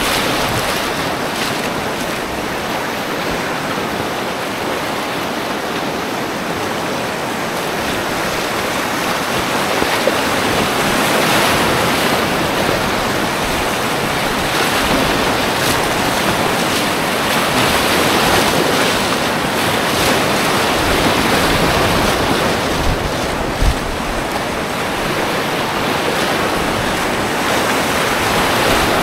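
Continuous whitewater rapids rushing loudly around a packraft, with waves splashing over the bow. The rush swells and eases at times, with a brief jolt a little past the middle.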